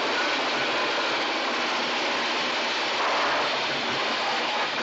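Steam train passing right by: a steady, dense rush of hissing steam and rolling train noise with no let-up.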